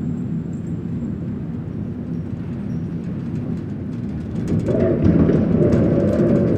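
Low, dark rumbling drone of a horror soundscape effect, swelling louder and fuller about four and a half seconds in, with scattered crackling on top.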